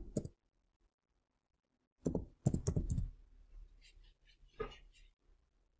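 Typing on a computer keyboard: a quick run of keystrokes about two seconds in, then a few fainter scattered clicks.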